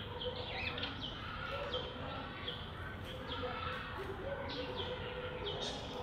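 Wild birds calling around a seed feeder: short high chirps that drop in pitch come several times a second over a steady background of other birdsong.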